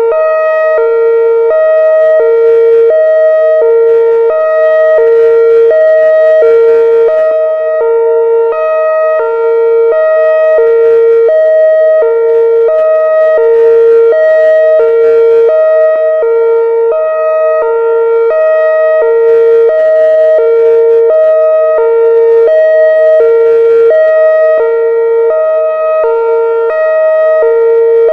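Whelen electronic siren sounding its hi-lo tone: a low and a high pitch alternating, each held about half a second, loud and steady.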